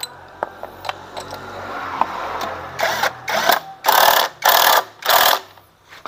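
A power tool run in about five short, loud bursts, each a fraction of a second long, after a fainter rising noise with a few clicks.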